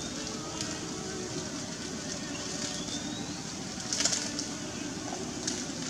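Outdoor ambience: a steady low background hum with faint bird calls, one a short rising whistle about three seconds in and a brief high chirp about four seconds in.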